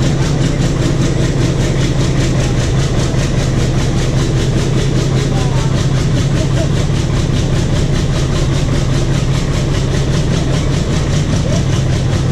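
ALCO diesel locomotive engine of a metre-gauge train running with a steady, loud drone and an even pulse as the train moves slowly along.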